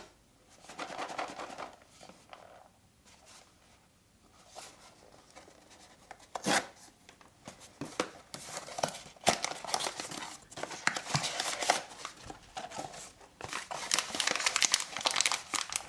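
A Pop Mart blind box being opened by hand: cardboard and plastic packaging rustling, crinkling and tearing, with scattered clicks. It is sparse at first and gets busier and denser in the second half.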